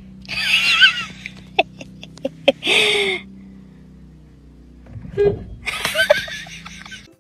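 A person laughing in breathy bursts inside a car, over a steady low hum, with a few sharp clicks between the laughs.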